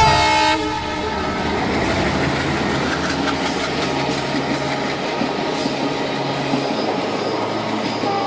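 Train sound effect: a short, pitched horn blast at the start, then the steady rumble of a train running on the rails.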